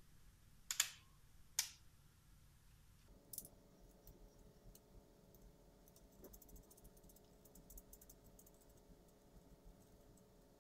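Faint clicks and light ticking of small plastic bicycle LED lamp housings and a screw being handled and fitted together by hand. There are two sharper clicks near the start, then a patter of tiny ticks over a faint steady hum.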